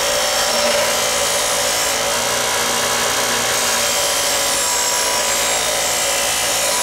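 Ryobi bench grinder running steadily, with the rusty steel of an old meat cleaver held against the spinning wheel to grind off dirt and rust: a steady motor hum under a continuous harsh grinding hiss.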